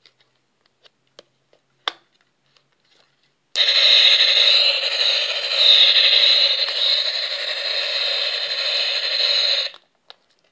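A battery-powered toy iron from a mini appliance play set playing its electronic sound effect through a tiny speaker: a loud, steady, tinny rushing noise that starts suddenly about three and a half seconds in and cuts off about six seconds later. Before it come a few faint plastic clicks from handling the toy.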